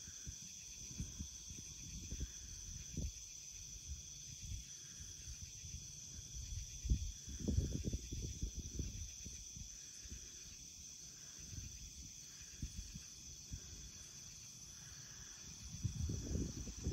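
Night insect chorus, a steady high trilling, with irregular low rumbling underneath that grows louder near the end.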